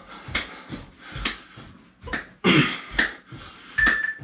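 Seal jacks: a sharp hand clap with each jump, a little over once a second, with heavy breathing between. Near the end an interval timer gives a short beep, the first of a countdown to the end of the work interval.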